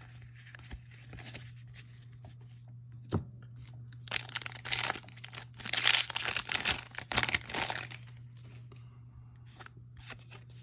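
A Magic: The Gathering booster pack's foil wrapper being torn open and crinkled by hand, loudest from about four to eight seconds in. Quieter card handling comes before and after.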